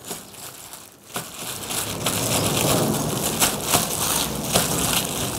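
Hands working red pepper seasoning into brined napa cabbage leaves: wet crunching and rustling of the leaves, faint at first and building up about a second in.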